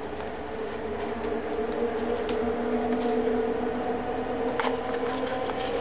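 A steady machine-like hum, growing louder about a second in, under the light handling of paper cards, with a few soft taps.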